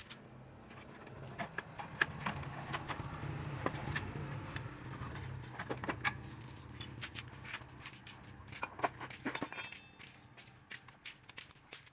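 Metal clinks and rattles of a wrench and loose nuts as the exhaust pipe is unbolted from the engine of a Honda Revo motorcycle and pulled off, over a low hum that fades out about two-thirds of the way through.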